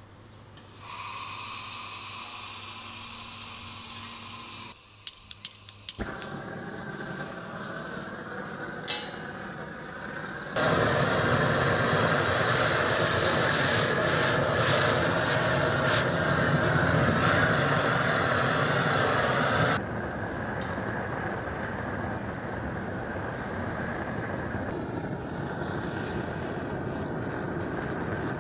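Propane torch fed from a gas cylinder: gas hissing with a high whistle for a few seconds, then a few clicks, then the burner's flame rushing steadily. The flame is much louder for about nine seconds in the middle and then runs at a lower level.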